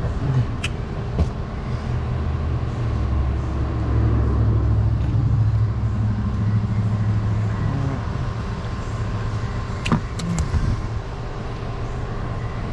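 A motor vehicle engine running steadily, somewhat louder for a few seconds early in the stretch, with a few sharp clicks and knocks.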